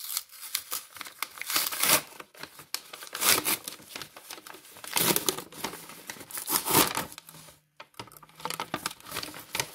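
Paper rustling and crinkling in irregular bursts as a folded paper package is opened by hand, with brown parchment-paper bags handled near the end.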